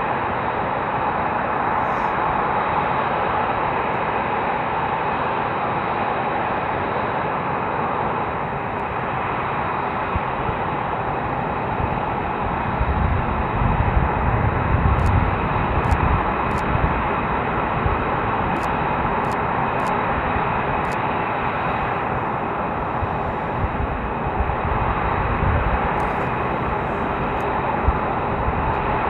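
Jet engines of a formation of F-22 Raptors, twin Pratt & Whitney F119 turbofans each, running at taxi power: a steady high whine over a broad rush. A deeper rumble swells for a few seconds about halfway through and again near the end.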